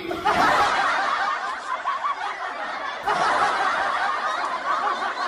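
Laughter from many people at once, a steady crowd laugh of the kind used as a laugh track, swelling again about three seconds in.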